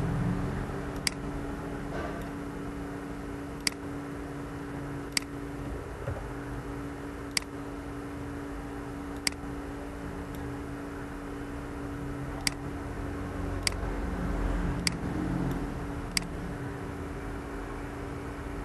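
Computer mouse clicking, nine sharp single clicks spaced one to three seconds apart, over a steady low electrical hum.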